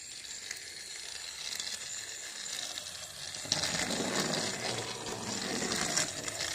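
Motorised TrackMaster Ashima toy engine running along plastic track, its small motor whirring and wheels rattling. It gets louder after a click about halfway through, as it passes close by.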